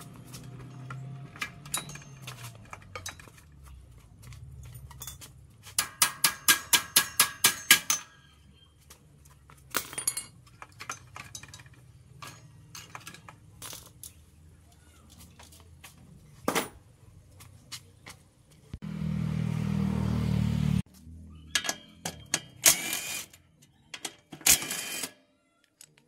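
Workshop tool and parts noises: scattered knocks and clicks, a fast run of about a dozen sharp strikes, and a loud burst of mechanical noise lasting about two seconds.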